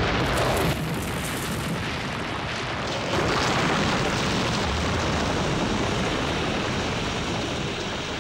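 A train hitting a Renault Espace at about 70–80 mph: a continuous, loud din of the crash, with ballast stones and wreckage flying. It drops abruptly about a second in, surges again about three seconds in, then slowly fades.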